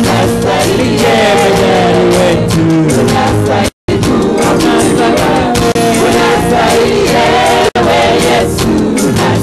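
Live gospel worship singing: a praise team of several voices singing together into handheld microphones. The audio drops out for a split second just before four seconds in.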